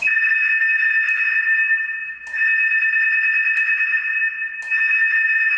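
Electronic fire alarm sounder set off from a wall-mounted button, sounding a loud, steady, high-pitched two-tone note with a faint click about every second.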